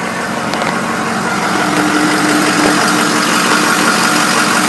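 The 6.0-litre Power Stroke V8 turbo-diesel of a 2006 Ford F550 wrecker idling steadily, with a steady hum coming in partway through and the sound growing slightly louder.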